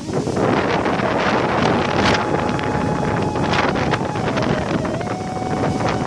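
Wind buffeting the microphone in gusts. Under it runs a faint steady hum whose pitch drops a little near the end.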